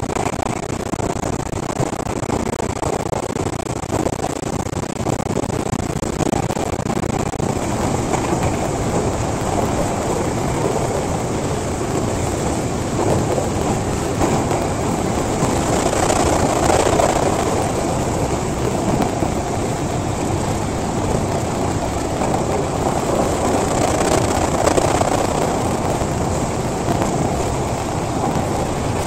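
Steady running noise heard inside an electric commuter train car moving at speed: wheels on the rails and the car's motors, swelling louder about halfway through and again near the end.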